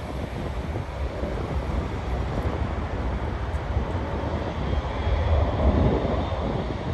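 Steady low jet rumble from a landing Boeing 777-300, with wind buffeting the microphone. The rumble swells about five seconds in, along with a faint high whine.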